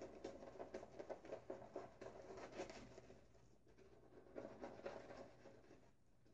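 Omega Pro 48 boar-bristle shaving brush face-lathering thick shaving soap on a bearded cheek and neck: a faint, quick scratchy swishing of many short strokes. It pauses briefly about three and a half seconds in, resumes, and dies away near the end. The denser sound is the lather thickening up.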